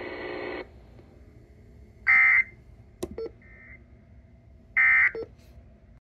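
Emergency Alert System end-of-message data bursts played through a radio's speaker: three short buzzing digital squawks about 1.3 seconds apart, the middle one much fainter. They follow the last words of a broadcast severe thunderstorm warning, which cut off about half a second in, and two short clicks come between them.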